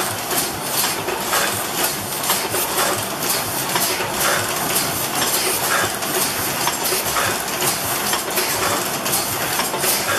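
Letterpress printing press running: a steady metallic clatter of clicks and knocks, with a heavier clank repeating about once a second as the press cycles.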